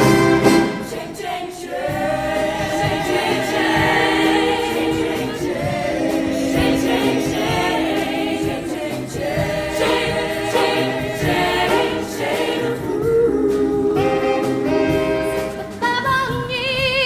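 A high school show choir singing in parts, with sustained and shifting chords.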